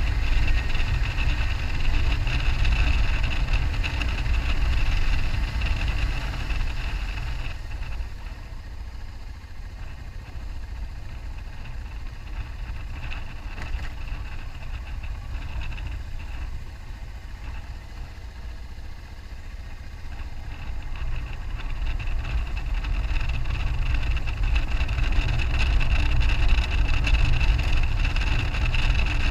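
2001 BMW F650GS Dakar's single-cylinder engine running on the move, with heavy wind rumble on the microphone. The sound drops off from about eight seconds in and builds again from about twenty seconds.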